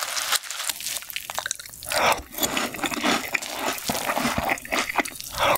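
Milk poured onto a glass bowl of crunchy cereal rings, splashing and crackling over the pieces for about the first two seconds. Then the cereal is scooped with a spoon and chewed, with close-up crunching.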